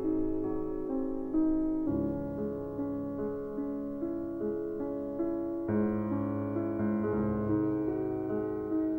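Piano music: a steady melody of single notes over low held notes, each note struck and then fading, with the bass moving to a new note every couple of seconds.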